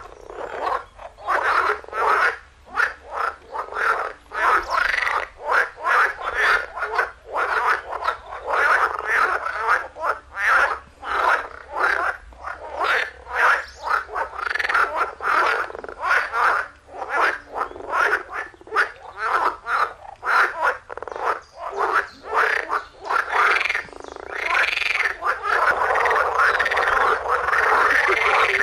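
A chorus of green water frogs calling in a pond: many overlapping, rapidly pulsed croaks. The calls run together into a denser, continuous chorus near the end.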